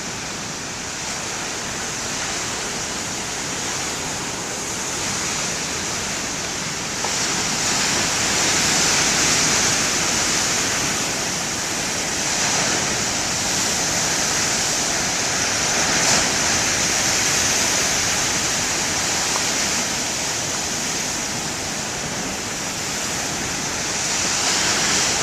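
Heavy surf: large storm waves breaking and washing against the shore in a continuous rush of noise. It swells louder about seven seconds in and eases off after about twenty seconds.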